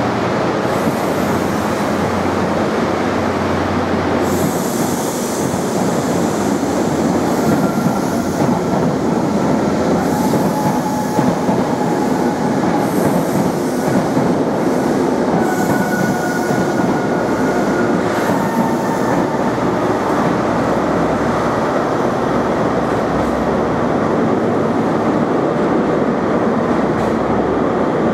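Passenger train carriages rolling past close by along a station platform: a steady rumble and hiss of wheels on rail, with a few brief, thin wheel squeals partway through.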